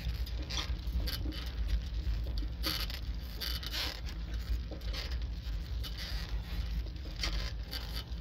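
Bicycle rolling along a concrete sidewalk: a steady low rumble with irregular light clicks and rattles.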